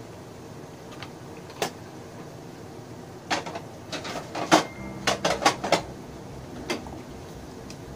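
Kitchen containers being handled: a single sharp click about a second and a half in, then a quick run of knocks and clicks from about three to six seconds in, as plastic tubs and jars are picked up and set down.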